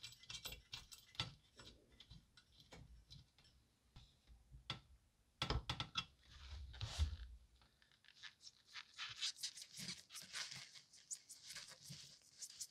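Faint workshop handling sounds of hand tools on metal parts: scattered clicks and taps, a short scrape about six seconds in, then a quick run of light ticking over the last few seconds.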